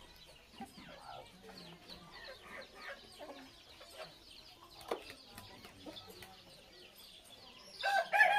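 Chickens clucking around a village yard, many short chirping calls throughout, then a rooster crows loudly near the end.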